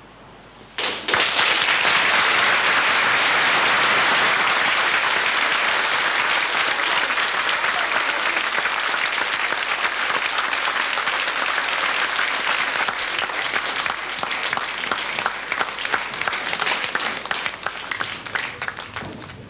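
A large theatre audience applauding. The applause starts suddenly about a second in and is loud and dense, then thins out into more distinct, separate claps toward the end.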